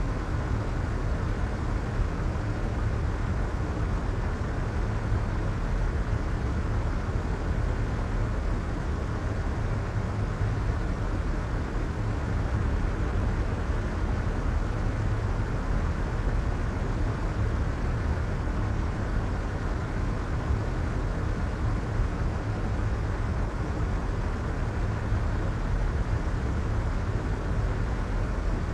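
Steady soft white noise for sleep, an even hiss weighted toward the low end so that it sounds like a deep rushing hum rather than a bright hiss. It stays unchanged throughout.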